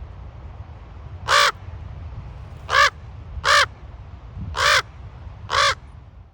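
Common raven giving five harsh, croaking calls, the middle ones coming in quicker succession, over a steady low rumble.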